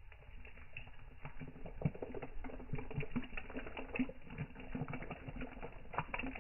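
A hot drink poured in a steady stream from a stainless steel flask into an enamel mug: a dense run of small irregular splashes and glugs that gets busier about half a second in.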